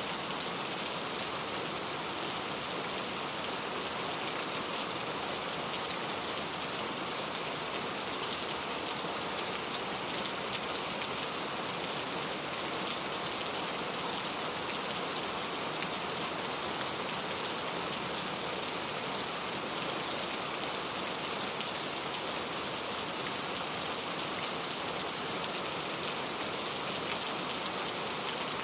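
Steady rain falling, a dense even wash of countless small drop hits that stays unchanged throughout.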